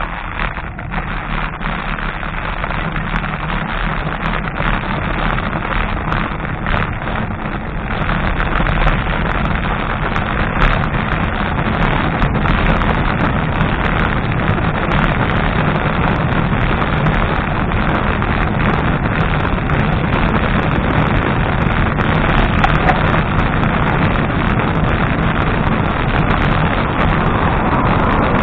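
Wind rushing over a bicycle-mounted camera's microphone, with road rumble underneath and scattered light clicks. It gets louder about eight seconds in and then stays steady.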